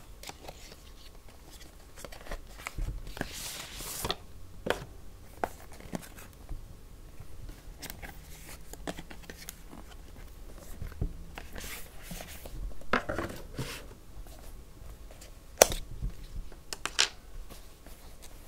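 Cardboard packaging and paper being handled during unboxing: scattered swishes of card and paper sliding and rustling, with small taps and clicks. A sharper knock comes about three seconds before the end.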